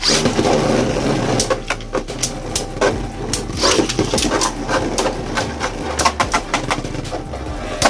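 Beyblade spinning tops whirring and clattering against each other and the walls of a plastic stadium, with many irregular sharp clicks and knocks.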